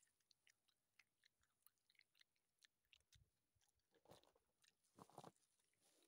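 Faint chewing of a mouthful of raw beef heart: a scatter of soft mouth clicks, with two louder mouth sounds about four and five seconds in.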